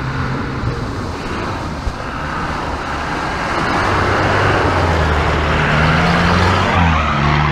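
Off-road SUV driving through deep mud on a forest track, engine working hard and wheels churning and spraying mud and water. It grows louder as it approaches and passes close by, and the engine pitch shifts near the end.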